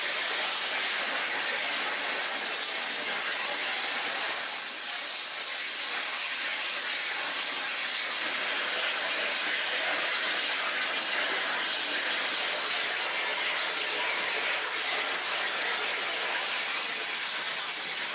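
Flow CNC waterjet cutter's high-pressure water jet hissing steadily as it cuts through an aluminium sheet.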